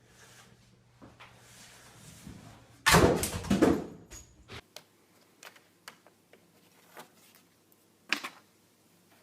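A loud clatter of hard objects knocking and rattling for about a second and a half, then scattered light clicks and one sharper knock near the end.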